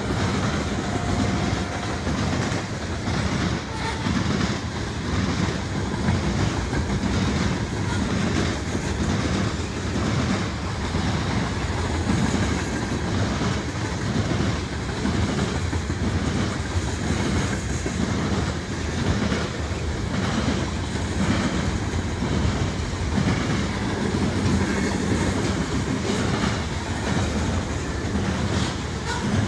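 Freight train's cars rolling past, tank cars and then covered hoppers: a steady rumble of wheels on rail broken by rhythmic clickety-clack as the trucks pass.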